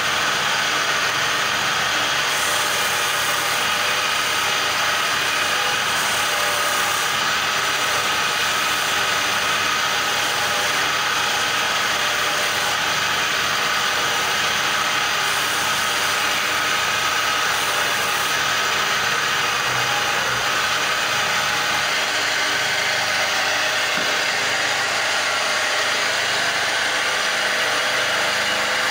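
Wood-turning lathe running steadily, with a hand tool held against the spinning wood.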